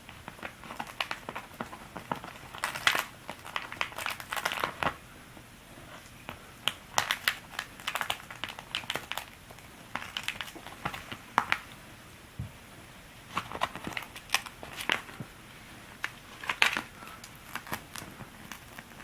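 A dry woven-leaf conical hat crackling and crinkling as it is handled, in about eight short clusters of brittle clicks with quiet gaps between them.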